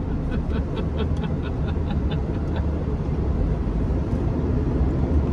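Steady low rumble of road and engine noise inside a car's cabin, with a run of faint quick ticks, about four a second, in the first half.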